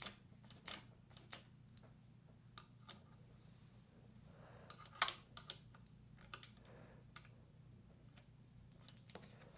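Scattered light clicks and taps of small hand tools and metal parts being handled while a clutch master cylinder is fitted to a motorcycle handlebar, with a short cluster of sharper clicks about five seconds in. A faint low steady hum lies underneath.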